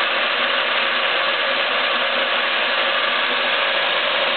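Stanko 6T10 milling machine running, its gear drive giving a steady mechanical whir and gear chatter while the table travels on power feed, carrying the cylinder head out from under the face mill.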